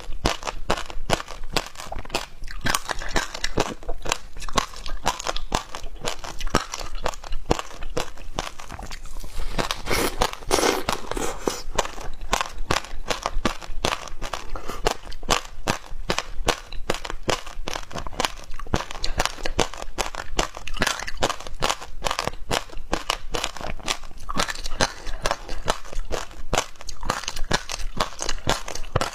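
Shaved ice being bitten and chewed close to the microphone: continuous crisp crunching, many sharp cracks packed closely together without a break.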